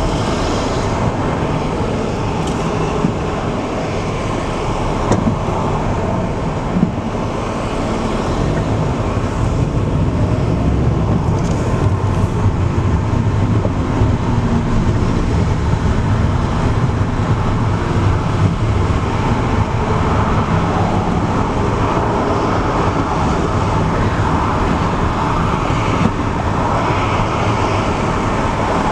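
Steady road noise of a car driving in slow, dense highway traffic, heard from inside the cabin: a low rumble of tyres and engine, with a couple of brief clicks.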